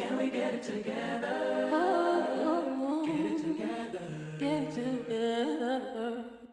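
Vocal music: singing voices with little instrumental backing, the melody gliding up and down, fading out near the end.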